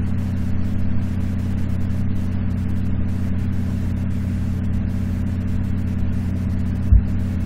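Steady low mechanical hum, like an engine or motor running, with one short low thump about seven seconds in.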